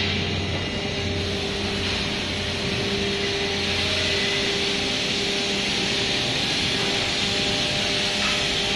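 Steady mechanical drone of workshop machinery: an even hiss with a steady mid-pitched tone, and a deeper hum that drops out about four seconds in.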